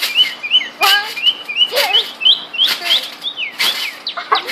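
Spring trampoline being jumped on by two people: sharp landing thumps about once a second with squeaks, over rapid high chirps throughout.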